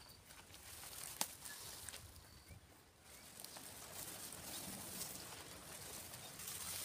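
Faint outdoor background hiss with one sharp click about a second in and a few brief faint high chirps.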